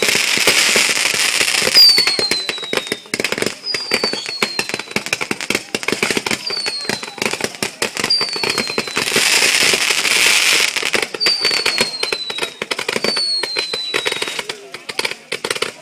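Fireworks going off in rapid succession: dense crackling and popping, with about six short whistles that fall in pitch.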